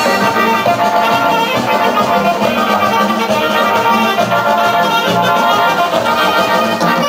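Dance music playing steadily and loudly for couples dancing.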